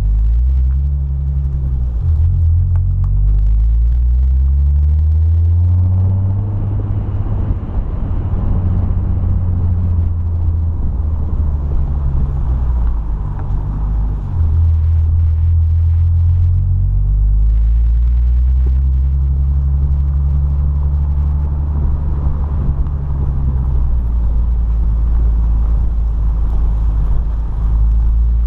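Nissan 350Z's 3.5-litre V6 engine running under way, a deep low note that climbs and drops back several times as the revs change, with tyre and wind noise over it.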